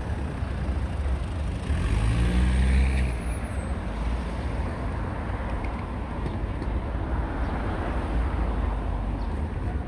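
Steady city street traffic rumble, with a vehicle passing close, its hum loudest about two to three seconds in.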